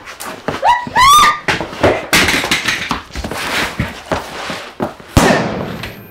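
A struggle over a revolver: a person's rising yell about a second in, then thuds and scuffling of two bodies grappling on the floor, and just after five seconds a single gunshot, the loudest sound.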